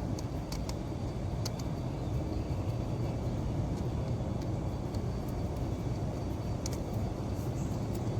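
Steady low hum of a running motor or engine, with a few faint clicks over it.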